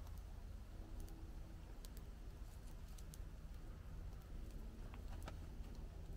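Small outdoor fire crackling: scattered sharp pops and clicks over a steady low rumble.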